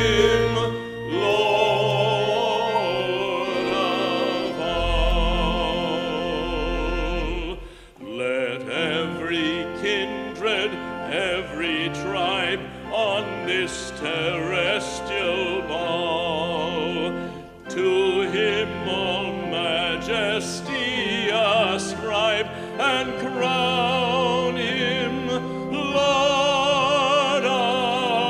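Music in classical style: a singing voice with wide vibrato over sustained accompaniment, with a brief break about eight seconds in.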